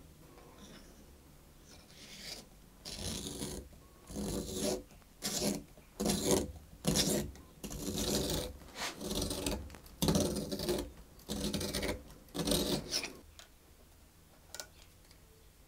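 Ebony cello peg being turned by hand in a peg shaper, its blade shaving the shaft in about fifteen short rasping strokes that stop a couple of seconds before the end.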